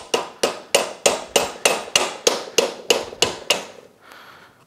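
Hammer tapping on metal in a quick, even series of about three strikes a second, driving the CV joint's inner race and bearing assembly off the splined end of a UTV axle shaft once its snap ring has popped loose. The taps stop about three and a half seconds in.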